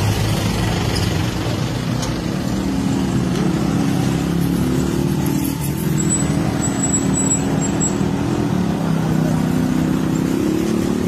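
A motor vehicle engine running steadily at an even, low pitch, with no revving.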